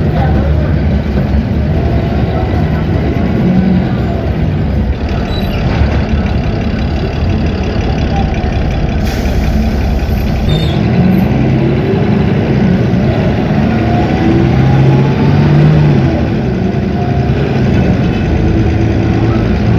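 Cummins ISB 6.7 six-cylinder diesel engine of a 2019 Agrale MT17 city bus running steadily, its note rising under acceleration about halfway through.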